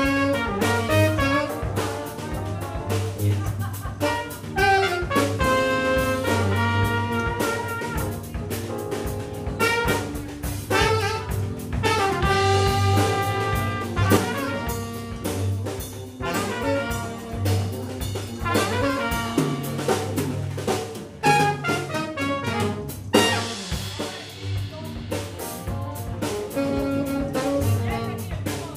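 Live jazz-funk combo: trumpet and tenor saxophone playing the melody together over electric bass, keyboard and drum kit.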